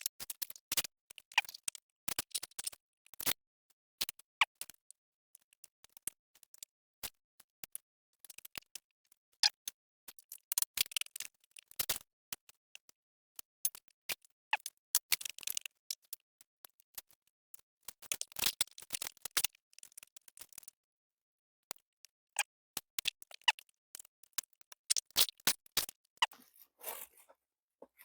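Crispy-skinned Korean fried chicken being bitten and chewed: irregular clusters of sharp crunching and crackling clicks with short quiet gaps between.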